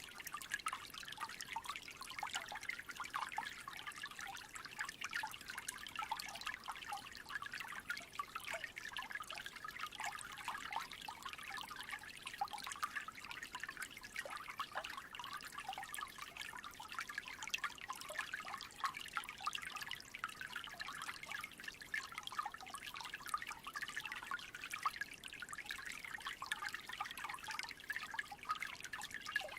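Small creek trickling: a steady, unbroken babble of many tiny gurgles and drips.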